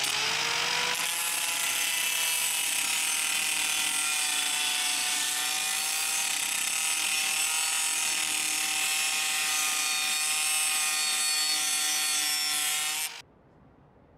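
Angle grinder with a cut-off disc spinning up, its whine rising over the first second, then cutting through a flat metal bar with a steady high whine and gritty grinding noise. It stops abruptly about thirteen seconds in.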